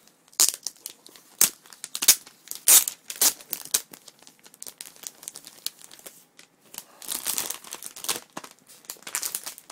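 Plastic protective wrap being torn and peeled off a new laptop, crinkling and ripping in irregular sharp bursts. The loudest rips come about two to three seconds in, with a longer stretch of crinkling near the end.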